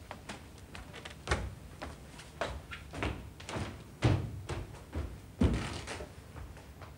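A series of irregular knocks and thuds, about eight of them spread over several seconds, the loudest two in the second half.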